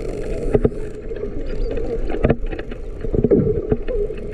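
Underwater sound near a pod of false killer whales: a stream of sharp, irregular clicks over a wavering low hum, with faint high whistles curling up and down.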